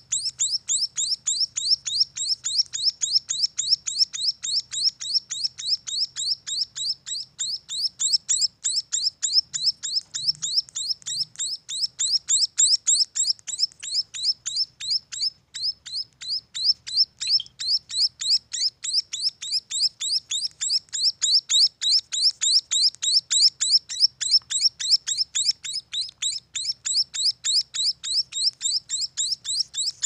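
Young munias (emprit) calling in a fast, unbroken run of short, high chirps, about four a second.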